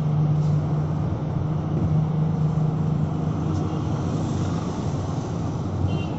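Cabin noise inside a moving electric city bus: a steady low hum over even road noise.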